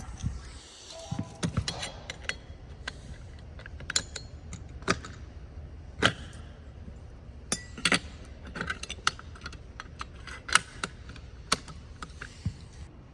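Irregular clicks and light clatter of small hard objects being handled, a dozen or more sharp knocks, over a low steady hum.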